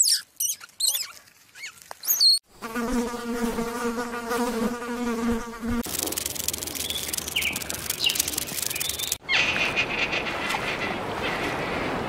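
A run of short animal-sound clips: high squeaky chirps for about two seconds, then a steady insect-like buzz for about three seconds, then a hissing noise that carries on to the end.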